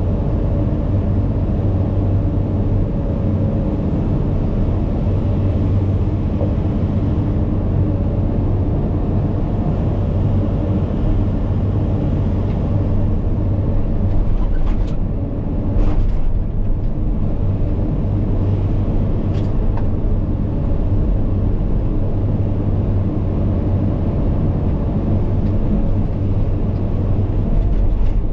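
Cat 395 hydraulic excavator's diesel engine running steadily under load, with a few sharp knocks about halfway through.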